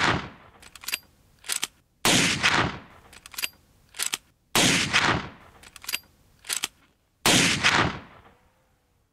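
Big-bore lever-action rifle, the Big Horn Armory Model 89 in .500 S&W, firing shot after shot about two and a half seconds apart, each shot ringing out with a long echoing tail. Between shots the lever is worked, giving two sharp metallic clacks as the action is opened and closed to chamber the next round.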